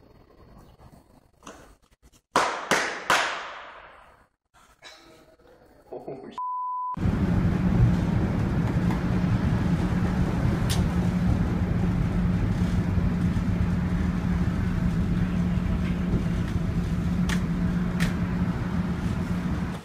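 Inside a moving subway car: a loud steady rumble with a low hum and a few sharp clicks. Before it come several loud bangs that ring out, about two to three seconds in, and a short bleep tone.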